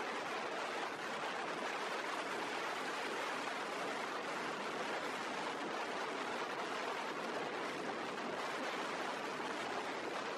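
Steady rushing road and wind noise of a car driving along a highway, an even hiss with no distinct engine note or other events.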